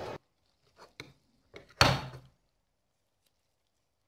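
Metal spoons knocking as Nutella is scooped from a terracotta bowl onto dough: a few faint clicks about a second in, then one sharper knock near the two-second mark.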